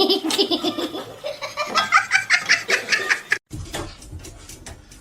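A person laughing in quick repeated bursts that climb in pitch, cut off suddenly about three and a half seconds in, followed by faint clicks.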